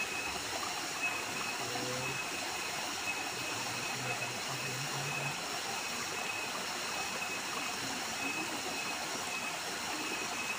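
Small waterfall pouring into a rocky stream pool: a steady rush of falling water.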